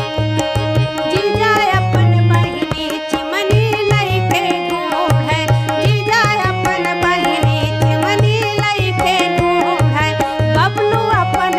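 A woman singing a Bagheli gari folk song to harmonium and tabla. The harmonium holds steady notes under the voice, which comes in about a second in, while the tabla keeps a quick rhythm with deep bass strokes.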